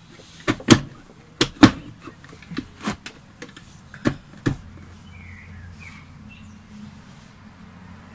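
Hollow plastic knocks and clacks as the red plastic top cover of an Eta Neptun trio vacuum cleaner is handled and seated on its body: about eight sharp knocks over the first four and a half seconds, then they stop.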